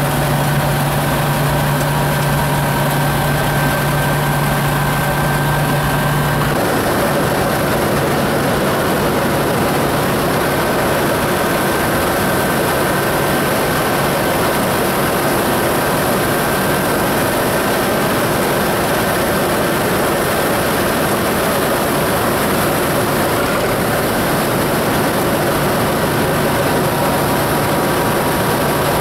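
Combine harvester running under load during the rye harvest, its engine and threshing machinery heard from inside the cab as a loud, steady machine drone. About six seconds in, the steady low hum gives way to a rougher, noisier running sound while the unloading auger pours threshed rye into a trailer.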